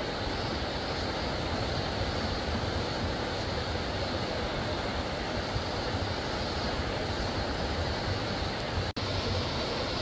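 Steady, even rush of flowing stream water, with a momentary dropout about a second before the end.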